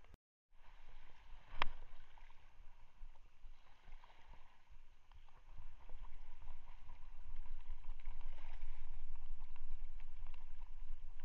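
Steady noise of sea water lapping with wind rumble on the microphone, after a brief dropout at the start; one sharp click about a second and a half in.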